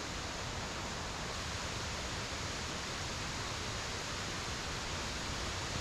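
Steady rushing of a waterfall and stream in high water after heavy rain, an even unbroken hiss.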